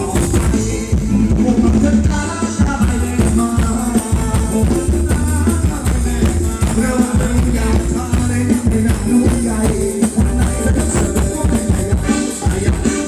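Loud Thai luk thung ramwong dance music from a live band, with a steady drum beat under a melody line.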